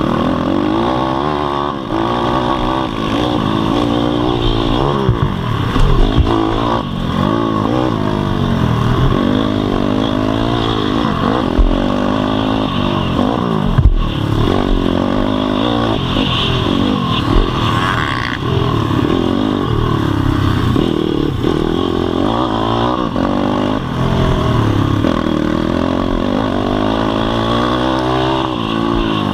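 On-board pit bike engine, heard close up, revving up and down again and again as the throttle opens and closes through the corners and straights, with a couple of sharp knocks along the way.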